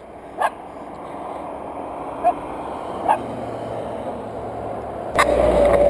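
A few short, sharp dog barks over the steadily rising noise of approaching road traffic; about five seconds in, a louder low rumble sets in suddenly.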